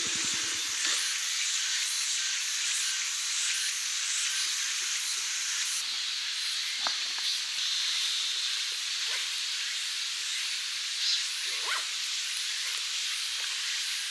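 Mountain valley stream rushing steadily over rocks, a constant hissing wash of water.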